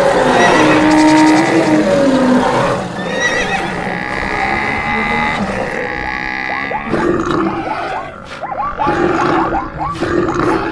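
A string of layered animal calls from a stampede sound track, among them a horse whinnying. The second half holds a quick series of short calls that rise and fall in pitch.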